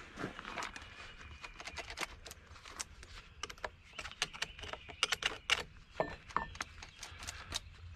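Irregular metallic clicks and rattles of a chainsaw's chain, bar and side plate being handled and worked loose, with the chain jammed by packed sawdust.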